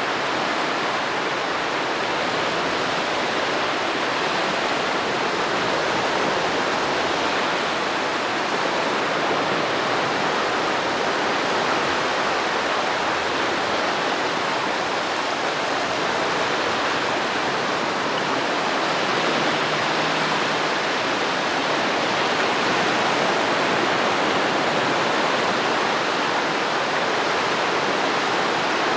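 Steady rushing of small Baltic Sea waves washing onto a sandy shore, an even wash of surf with no separate crashes standing out.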